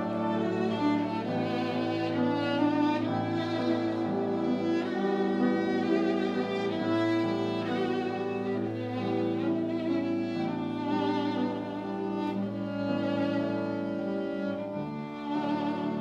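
Live classical chamber music: violin and cello playing sustained notes with vibrato.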